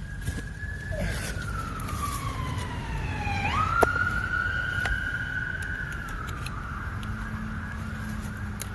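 Makita XPH07 brushless hammer drill running on speed 1 with a 5/8-inch paddle bit boring into oak. Its motor whine drops steadily in pitch as the bit bogs down under load, then about three and a half seconds in jumps back up and holds steady.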